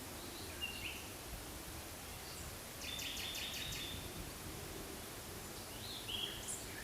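Forest birds calling over a steady background hiss: short chirps about half a second in and again near the end, and a rapid trill lasting about a second and a half in the middle.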